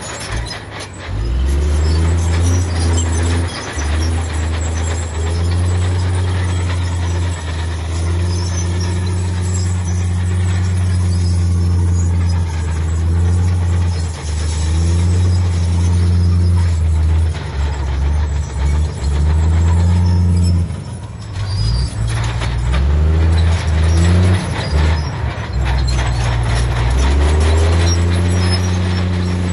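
Heavy diesel earthmoving machinery running at a landfill, the deep engine note swelling and easing every few seconds as it works under changing load, with brief dips and some clanking.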